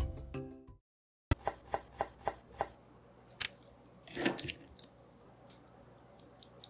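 Background music fades out in the first second. After a short silence, a kitchen knife chops on a cutting board: about six quick strokes, roughly four a second, then a single stroke and a short scrape.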